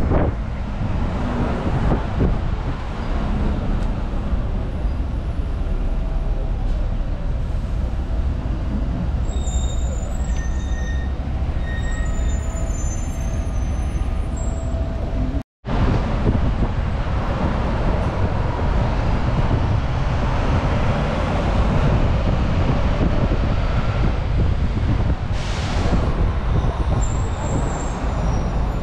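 Bus running, a steady low engine and road rumble, with a short hiss near the end. The sound drops out for a moment about halfway through.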